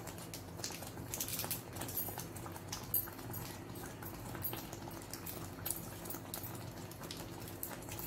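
Thick oats porridge boiling in a pan on a high flame, its bubbles popping in irregular soft clicks and plops over a steady low hum.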